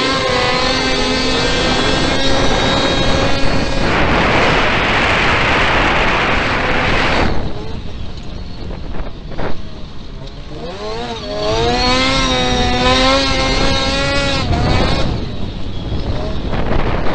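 Autocross race car's engine heard on board at race pace: revving up and holding high. A harsh rushing noise then drowns it for about three seconds. It drops off sharply, runs lower for a few seconds with a single sharp click, then revs up again and falls away near the end.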